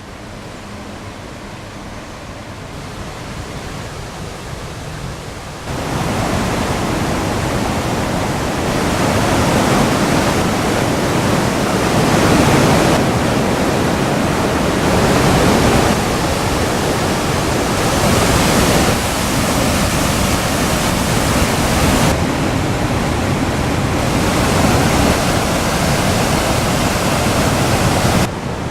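Waterfall's steady rushing noise, loud and even, with no other sound over it. It jumps louder about six seconds in and shifts in level a few more times after that.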